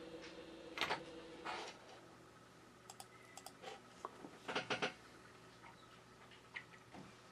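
Faint, scattered small clicks and taps of metal tweezers handling a small plastic AirPod stem, with a brief cluster of taps past the middle. A faint steady hum stops about one and a half seconds in.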